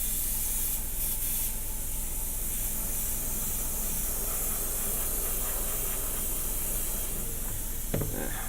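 Airbrush spraying paint: a steady high hiss of air and paint from the nozzle, with a short knock near the end.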